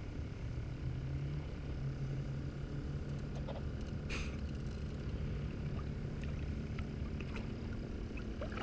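A low, steady motor hum, with one short click about four seconds in.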